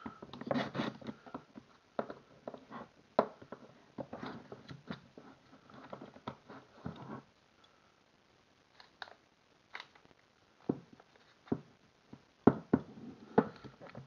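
Irwin Quick-Grip bar clamp being handled and repositioned on a workbench, with knocks and rattles, then several sharp separate clicks near the end as its trigger is squeezed to press a pen kit's end fitting into the tube.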